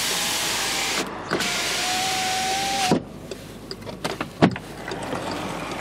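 Skoda Fabia front power window motor running the glass in two one-touch runs: a steady whine, briefly interrupted about a second in, that stops with a knock near three seconds as the glass reaches the end of its travel. A few switch clicks follow.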